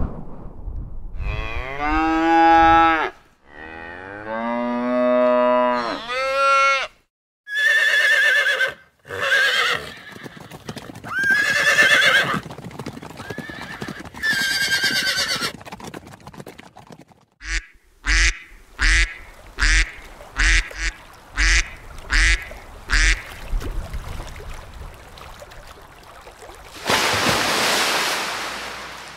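Farmyard animal sound effects: a cow mooing twice in long calls, then a horse neighing several times. After that comes a quick run of short, evenly spaced sounds about two a second, and a brief rush of noise near the end.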